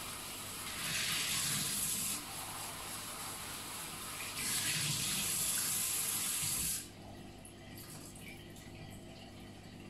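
Kitchen tap running water into a bowl of cubed pumpkin at a stainless steel sink as the pieces are rinsed, splashing louder twice. The water is shut off abruptly about two-thirds of the way through.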